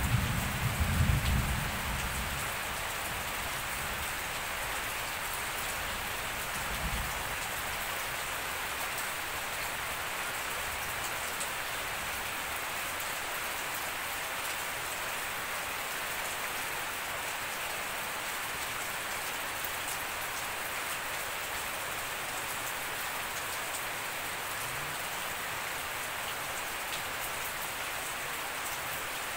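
Steady, even rain falling on grass, leaves and puddles. A low rumble of thunder over the first two seconds is the loudest thing, with a fainter low rumble about seven seconds in.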